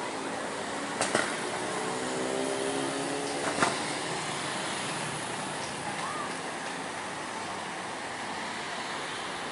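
Slow, heavy road traffic: cars, a bus and motorcycles passing with engines running. A steady engine drone sounds for the first few seconds, with two short sharp knocks about one and three and a half seconds in.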